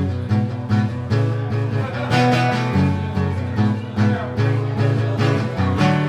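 Guitar strummed in a steady rhythm, the instrumental intro of a country song before the singing comes in.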